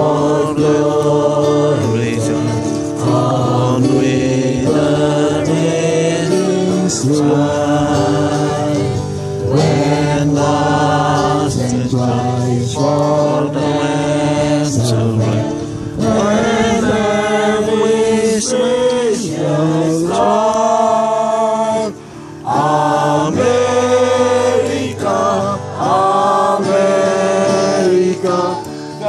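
A group of men and women singing together from song sheets, with long held notes, briefly breaking off about two-thirds of the way through.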